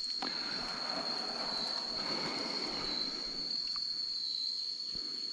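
A steady, high-pitched insect drone, with a rustling noise over the first three seconds or so.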